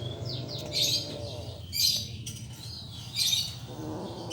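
Small rodent squeaking in short high-pitched squeals, about three times, while being played with by a kitten.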